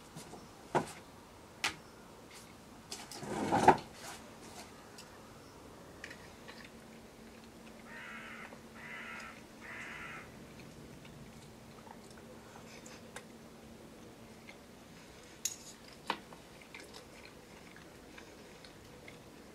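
Knife and fork on a plate while cutting up a fried breakfast: a few sharp clinks, three short strokes of the knife cutting about eight seconds in, and more clinks near the end. The loudest sound is a rising scrape ending in a knock a few seconds in.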